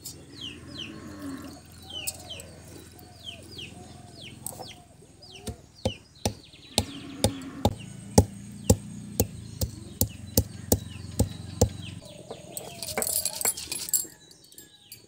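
Round stone muller knocking down on seeds on a flat stone grinding slab, sharp knocks about twice a second that crush the seeds, turning to a stone-on-stone rubbing scrape near the end. Birds chirp a repeated falling call during the first few seconds.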